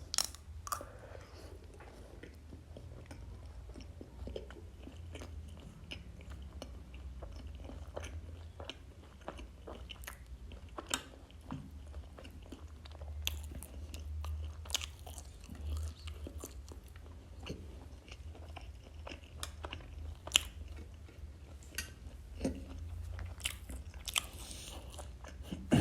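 Close-miked eating: a person biting and chewing seitan sadeko (spiced seitan salad), with scattered small crunches and mouth clicks throughout, over a steady low hum.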